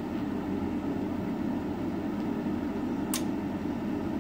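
Carrier 58MVC furnace's draft inducer motor running steadily while the hot surface igniter warms up, before the burners light. A single sharp click comes about three seconds in.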